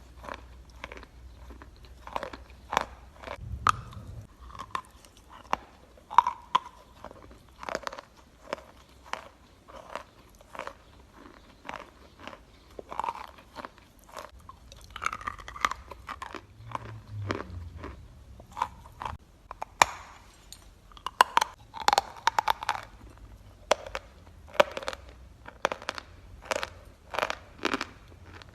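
Natural chalk being bitten and chewed close to the microphone: a long series of irregular, crisp crunches, with no words.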